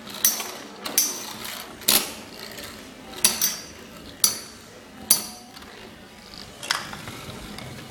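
Metal-wheeled Beyblade spinning tops clashing in a plastic stadium: about seven sharp metallic clacks at irregular intervals, some with a short ring, over the faint whir of the spinning tops.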